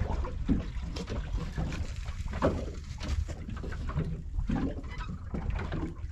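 Ambient sound aboard a small fishing boat at sea: a steady low rumble of wind and water against the hull, with scattered knocks and brief muffled voices.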